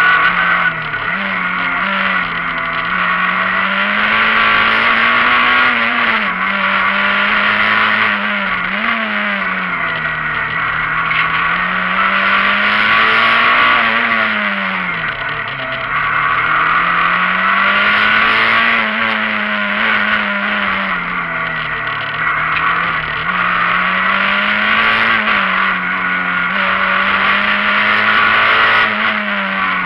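Rally car engine heard from inside the cabin while driven hard on a stage, its revs rising and falling every few seconds through the bends and dropping lowest about halfway through, over steady tyre and road noise.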